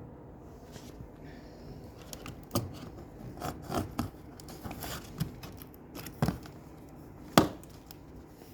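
Irregular knocks, scrapes and tearing from a sewing machine's cardboard box being opened and handled, with the loudest knock about seven seconds in.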